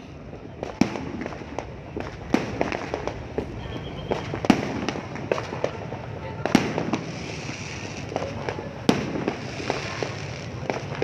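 Fireworks going off: an irregular run of sharp bangs and crackles, the loudest about four and a half, six and a half and nine seconds in.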